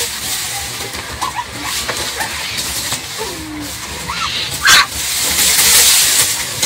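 Puppies whimpering in short high squeaks, with one louder yelp about two-thirds of the way in, over dry grass and brush rustling.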